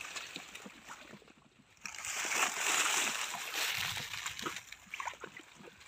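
Water sloshing and splashing around someone wading and groping for fish by hand, louder from about two seconds in.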